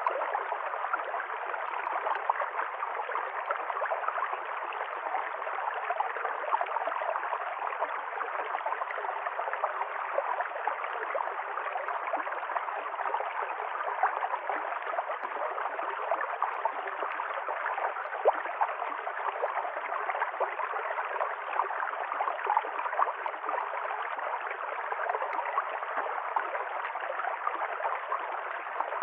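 A small river stream flowing and gurgling steadily, an even rush of water with constant small splashes.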